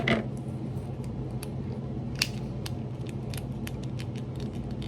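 Small plastic toy packaging being handled and opened: scattered sharp clicks and crinkles over a steady low hum.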